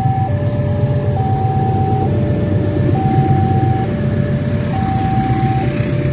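Railway level-crossing warning siren sounding a two-tone electronic alarm, alternating evenly between a higher and a lower tone, each held just under a second, signalling that a train is approaching and the barriers are closing. A steady low engine rumble runs underneath.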